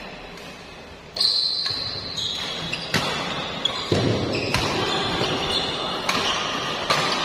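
Badminton doubles rally: a string of sharp racket hits on the shuttlecock, one every second or so, starting about a second in, with shoe squeaks on the court floor. About four seconds in, a jump smash is followed by a thud.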